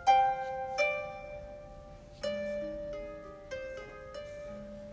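Background music: a slow melody of plucked string notes, each ringing and fading before the next.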